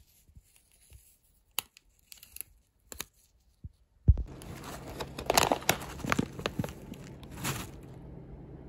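Plastic backing film being peeled and crinkled off an adhesive pain-relief patch: a few faint crackles at first, then a low bump about four seconds in followed by several seconds of louder, denser crinkling and tearing.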